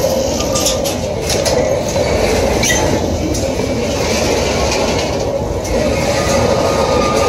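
Freight train hopper wagons rolling past: a steady rumble of steel wheels on rail, with clicks over the rail joints in the first few seconds and a faint wheel squeal near the end.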